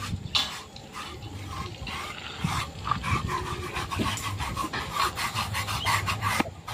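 Curry comb scraping over a horse's coat in a run of quick, irregular rubbing strokes.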